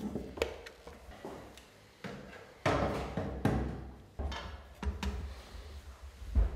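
Metal parts being handled: a few clunks and scraping knocks as a brass front plate with two projector lenses is fitted onto a magic lantern, with the sharpest knock near the end.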